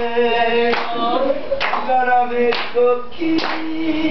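A small group singing a Korean song together, clapping their hands on the beat about once a second.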